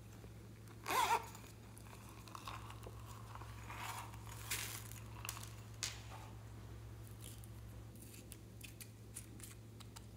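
Hands handling small plastic containers: a brief, loud crackly clatter about a second in, then lighter rustling and clicking. Near the end a nail-polish bottle's cap gives small clicks as it is unscrewed and the brush drawn out.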